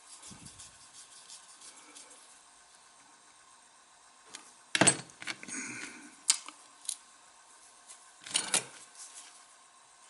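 A few sharp, small metal clicks and clinks, spread out with quiet between them, as a small screwdriver and the metal parts of a vintage Firebird butane lighter are handled during reassembly.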